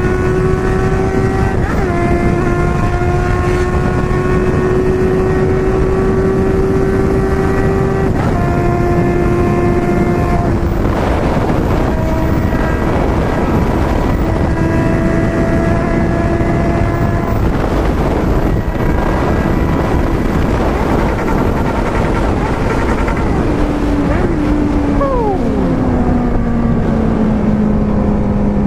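Four-cylinder car engine running at steady, fairly high revs. Its pitch dips briefly about 2 seconds and 8 seconds in, then slides gradually lower near the end.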